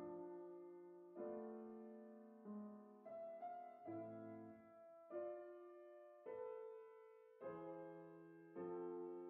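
Piano playing soft, slow chords, a new chord struck about once a second and each left to ring and fade.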